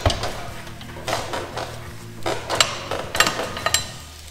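Metal clinks and clanks from a Tremec 3650 manual transmission and the chains it hangs from, shifted by hand as it comes away from the engine; about seven sharp knocks spread through the few seconds.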